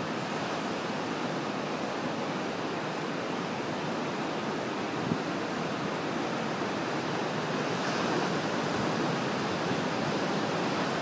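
Atlantic surf breaking and washing over a rocky shore, a steady rush of waves that swells a little about eight seconds in.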